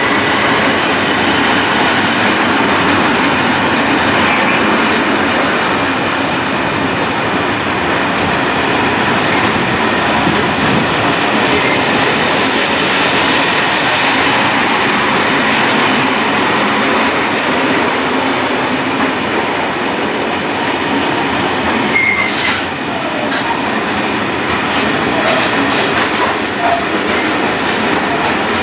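Freight train of high-sided open goods wagons rolling past close by, with a steady rumble and rattle of wheels and wagon bodies. A thin wheel squeal rings near the start and again some twenty seconds in, and a few sharp clanks come near the end.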